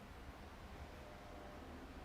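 Faint steady background hiss with a low rumble, with no distinct cracks or knocks.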